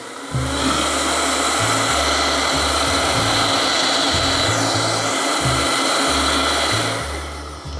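Stainless steel Vitamix blender running through a thick frozen banana and pineapple smoothie mix, then dying away near the end. Background music with a steady bass line plays underneath.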